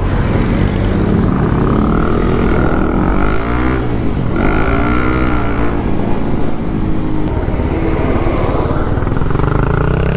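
Honda CB150R's single-cylinder engine heard from the rider's seat, its pitch rising and falling as the bike accelerates and eases off, with a brief drop and climb about four seconds in, as at a gear change. Low wind rush on the helmet microphone underneath.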